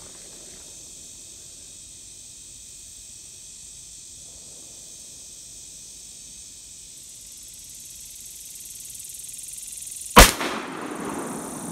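A single shot from an 1858 Remington black-powder percussion revolver loaded with fresh powder, about ten seconds in: one sharp, loud report that rings away over about a second.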